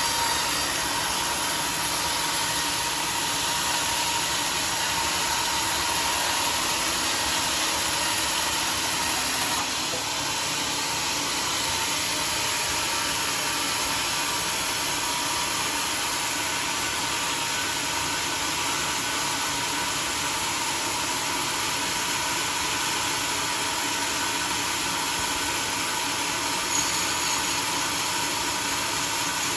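Homemade sawmill running steadily: a broad, even machine noise with a steady whine running through it, easing slightly about ten seconds in.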